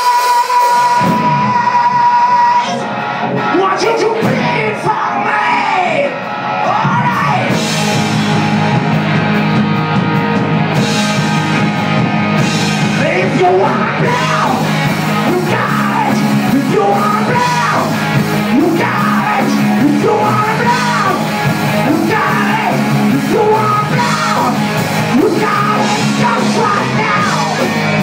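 A rock band playing live, with electric guitars, bass and drums and yelled singing over them. A high held note at the start cuts off about two seconds in, and the full band carries on.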